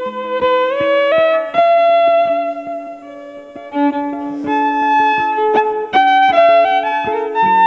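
Background music of layered, looped violin playing: a bowed melody moving from note to note over held lower notes, with short plucked notes throughout.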